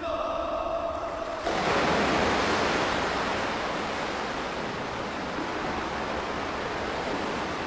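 A steady held tone for about the first second and a half, then a louder, even wash of water noise: the ambience of an indoor swimming pool, its water splashing and lapping.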